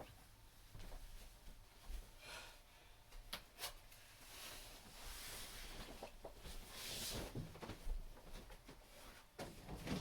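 A man's faint, noisy breathing and sniffing through the nose: three long breaths, with a couple of small clicks about three and a half seconds in. This is the build-up to a sneeze brought on by chhinkni sneezing powder.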